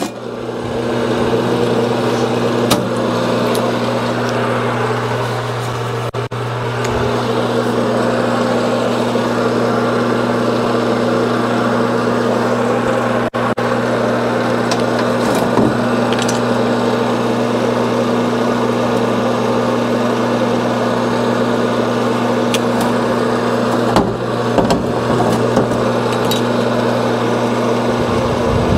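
Electric motor of a Sunnen cylinder-honing machine running steadily with a constant low hum. A few light clicks from tools being handled sound over it.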